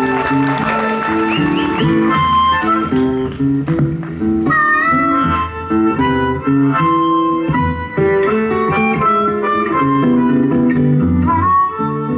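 Blues harmonica solo with bent, sliding notes over strummed acoustic guitar accompaniment.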